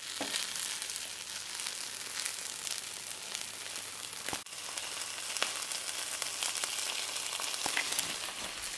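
Avocado pancake batter frying in oil in a nonstick frying pan: a steady high sizzle with scattered small crackles and pops.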